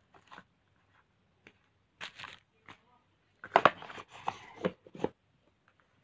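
Handling noise from a small cardboard watch box and its packaging: rustling, crinkling and light knocks in a few short bursts, loudest about three and a half seconds in.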